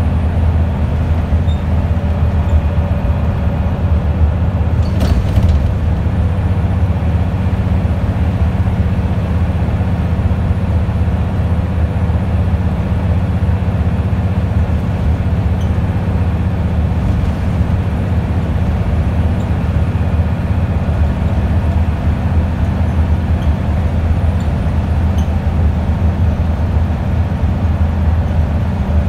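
Steady low drone of a Wright Scania Solar bus under way, heard inside the cabin: the diesel engine's steady hum together with road noise. A brief knock about five seconds in.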